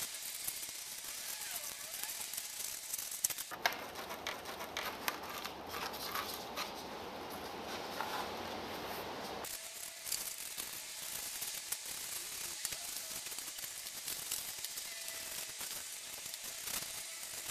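A brush dabbing and scrubbing wet black tile grout onto a cement-coated styrofoam rock piece: soft, scratchy, crackling strokes over a steady hiss.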